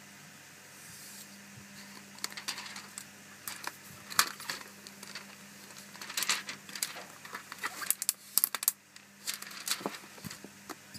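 Protective plastic wrap crinkling and crackling in irregular sharp bursts as a newly unboxed device is handled and unwrapped, starting about two seconds in and busiest near the end.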